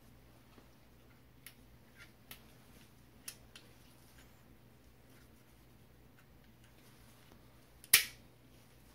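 Faint, scattered light taps and clicks of a Glock 22 pistol frame and cleaning patch being handled during wiping, then one sharp, much louder click near the end.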